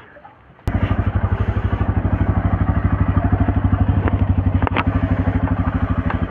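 Motorcycle engine starting up abruptly about a second in, then idling with a rapid, even pulse. There are a couple of light clicks partway through.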